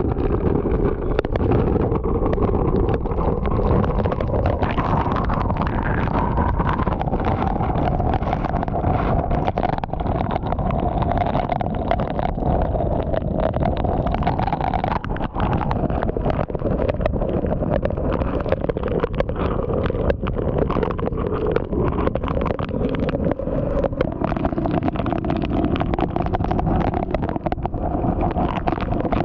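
Hurricane wind and driving rain battering a vehicle, heard from inside the cabin: a steady roar with a wavering whistle, and rain pelting the windshield and body.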